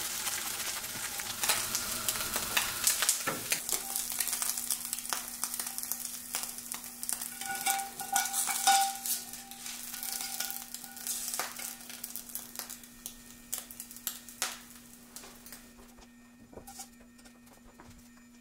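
Scrambled eggs and sliced mushrooms sizzling in a metal pan as a metal spatula stirs and scrapes them, with many sharp clicks of metal on metal. The sizzling fades toward the end, leaving scattered light clicks. A steady low hum starts about three seconds in.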